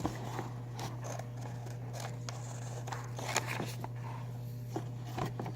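Scissors snipping and paper being handled, with scattered short clicks over a steady low hum.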